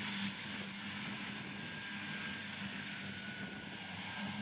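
Claas tractor engines running steadily under load while their front and side mowers cut grass, heard from across the field. There is a steady drone with a low hum that fades in the middle and returns near the end.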